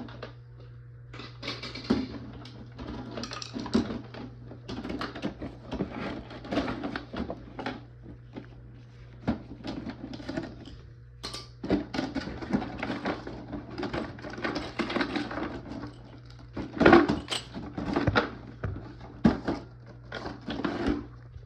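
Irregular clattering, tapping and knocking of parts and tools being handled, with the busiest, loudest knocks about seventeen seconds in, over a steady low hum.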